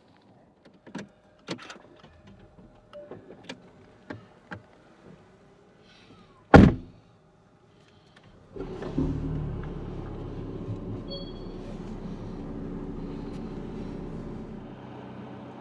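A few light clicks and knocks inside a car cabin, then a car door shutting with a loud thud. About two seconds later the Porsche 918 Spyder's V8 starts, flares briefly and settles into a steady idle, heard from inside the cabin.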